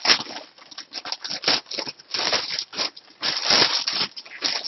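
Packaging crinkling and rustling in irregular bursts as it is handled and pulled open.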